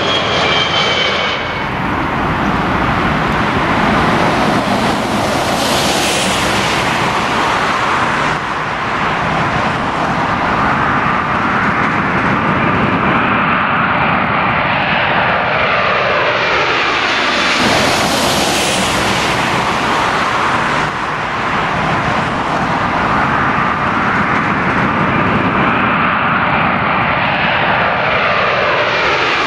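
Jet engines of a British Airways Boeing 747-400, its four Rolls-Royce RB211 turbofans, on low final approach: a loud steady roar that falls in pitch as the jumbo passes overhead, and again near the end as it lands.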